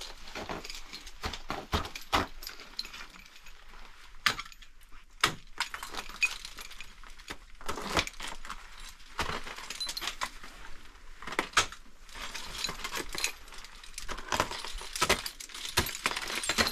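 Ice tools and crampons striking waterfall ice in irregular sharp blows about every second, with shattered ice chips clinking like glass.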